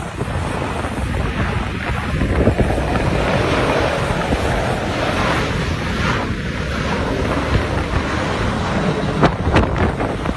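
Strong wind buffeting the microphone in a steady rumbling rush, with a few sharp clicks near the end.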